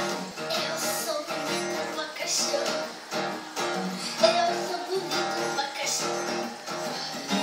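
Music playing: a song led by strummed acoustic guitar, with a steady rhythm.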